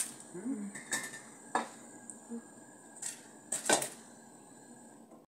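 A few metallic clinks and knocks of an aluminium lid and steamer pot being handled and the lid set on the pot, the loudest about three and a half seconds in.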